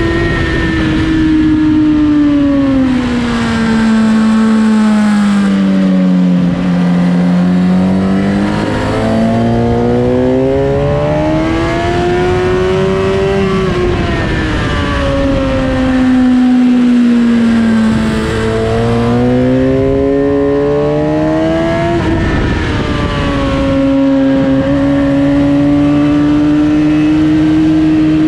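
Suzuki GSX-R1000 K8's inline-four engine running hard at high revs, over steady wind rush. Its pitch sinks slowly, climbs back, and twice drops suddenly before climbing again.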